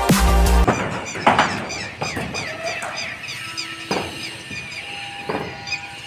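Electronic background music that cuts off about a second in, followed by outdoor ambience of many short high chirps, like small birds calling, with a few sharp knocks.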